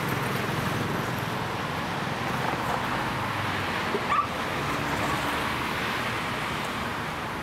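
A dog gives one brief high whine about four seconds in, over a steady background hiss of outdoor noise.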